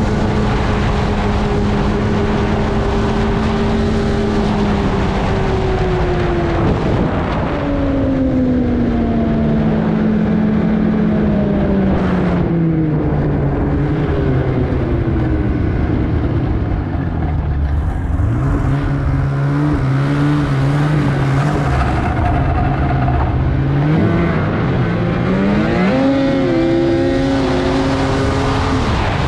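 2021 Polaris Indy XC 850 snowmobile's two-stroke twin engine running under way. The engine note holds steady, then falls gradually as the sled slows through the middle. It climbs again as the throttle opens about three-quarters of the way in, then holds.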